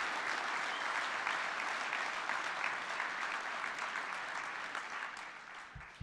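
Audience applauding steadily, then dying away near the end, with a soft thump just before it stops.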